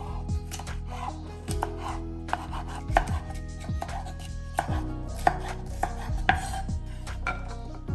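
Chef's knife slicing a green bell pepper into strips on a bamboo cutting board, each cut ending in a sharp tap of the blade on the wood, in a steady series of strokes.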